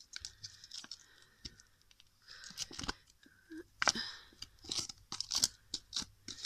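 Sticky slime being pulled off fingers while plastic slime tubs are handled: irregular sticky crackling and small tearing clicks, strongest about four and five seconds in.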